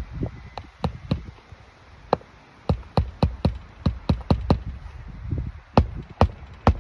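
Hammer driving roofing nails into asphalt shingles: a run of sharp strikes, several a second at times, broken by short pauses.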